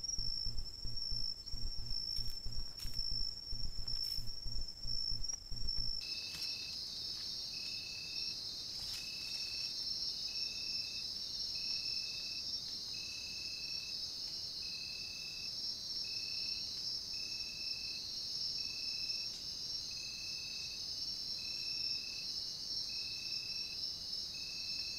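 Night insects, crickets, trilling steadily on one high note, with rapid low thumps close to the microphone. About six seconds in the sound changes to a denser high insect chorus, with a short chirp repeating about once a second.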